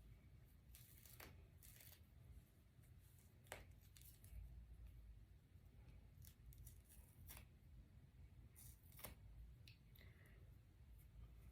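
Near silence: faint room hum with a few scattered soft clicks and rustles of handling.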